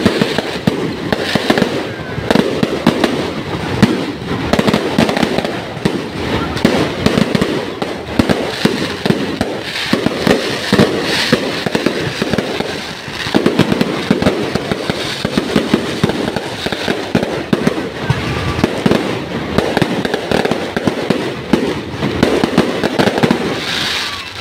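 Fireworks going off in a dense, continuous barrage of bangs and crackling, one burst following another with no pause.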